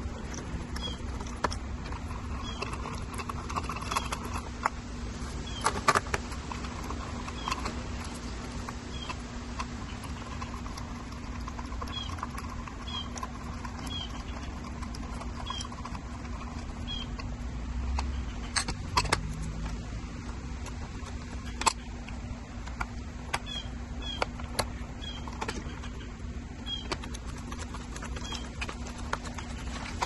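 Small screwdriver turning screws into the plastic top cap of an e-bike battery, with irregular light clicks and taps of tool on plastic and metal as the lock housing is put back together.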